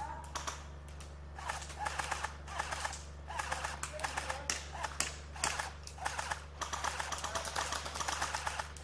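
Airsoft electric guns firing on full auto: repeated bursts of rapid, clattering clicks, each lasting from half a second to about two seconds, starting about a second and a half in.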